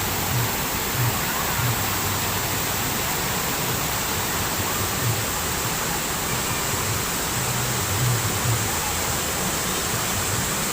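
Waterfall: a steady, dense rush of falling water, with a few brief low thumps now and then.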